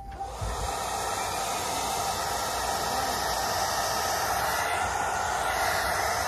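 Handheld hair dryer switching on and running steadily, a loud even rush of air blown at the hair.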